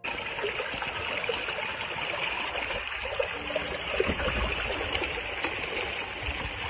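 Floodwater rushing and churning in a steady noisy rush, with a few dull knocks in it.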